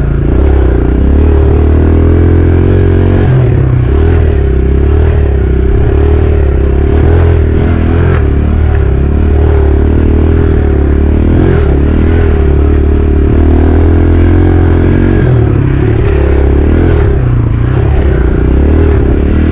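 Dirt bike engine running steadily as the bike is ridden along a trail.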